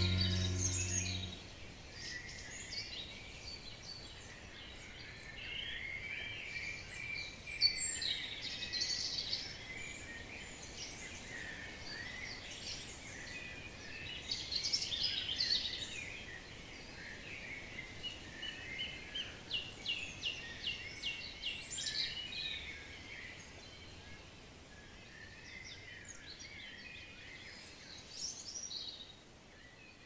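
Several wild birds singing and chirping outdoors over a faint steady hiss, with scattered short calls and trills and a run of quick repeated notes around the middle. Background music fades out in the first second or so.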